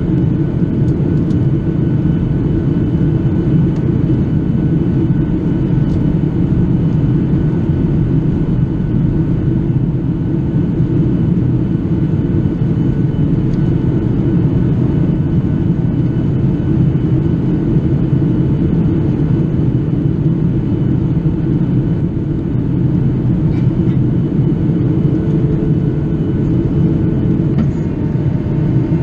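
Cabin noise inside a Boeing 737-800 in flight: a steady low roar of airflow and CFM56-7B engines, with a faint steady hum above it.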